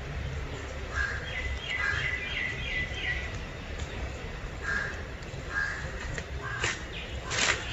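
Birds calling: a run of quick, repeated high chirps, then a few shorter calls, and two harsher, noisier calls near the end, over a low steady rumble.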